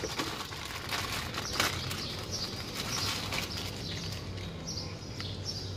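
Small birds chirping repeatedly, short high notes every second or so, with a couple of faint clicks.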